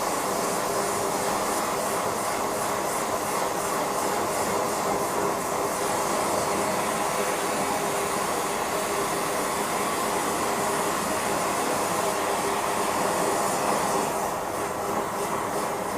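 Steady rushing noise of a gas burner running on a metal-melting setup, with a faint steady hum in it; it eases slightly near the end.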